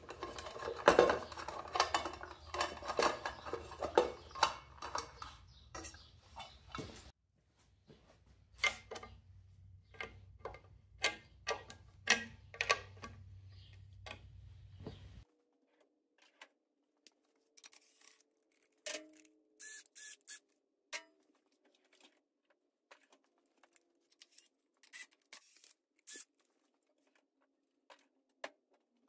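Scattered clicks and taps of hand tools, a screwdriver and then a ratchet, against the metal air filter cover and air cleaner of a Harley-Davidson Evo V-twin as they are unbolted.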